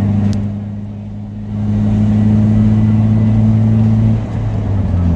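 A car's engine and road noise heard from inside the cabin as a steady low hum. It dips briefly, grows louder about a second and a half in, and eases off a little after four seconds.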